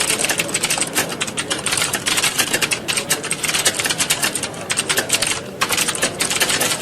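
Many computer keyboards being typed on at once, a dense, overlapping clatter of keystrokes like a room full of candidates in a typing test, with a brief lull about five and a half seconds in.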